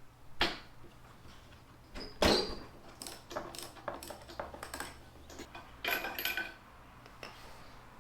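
Metal hand tools clinking and knocking as they are handled against each other and the mower: a string of separate clicks and clanks, the loudest about two seconds in, with a few brief ringing clinks around six seconds.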